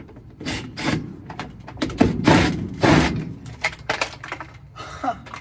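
Knocks, scrapes and clatter of a Maytag top-load washer's access cover being unscrewed and pulled off, with a short falling squeak near the end.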